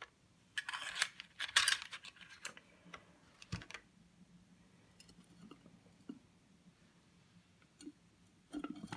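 Handling noise as printed cards and small objects are picked up and moved about: rustling loudest in the first two seconds, a sharp knock about three and a half seconds in, then a few faint clicks.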